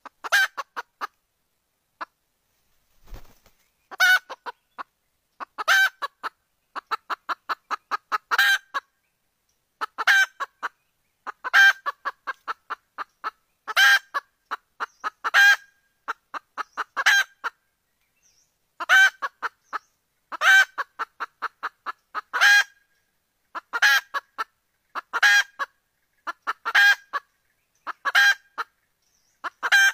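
Jungle fowl hen calling: a loud cluck followed by a quick run of shorter clucks, about five a second, repeated every second or two. This is the hen's call that draws wild roosters in.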